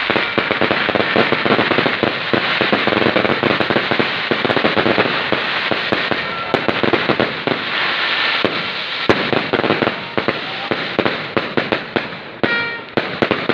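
A fireworks display in full barrage: dense, continuous crackling and banging for about ten seconds, then thinning to separate sharp pops near the end.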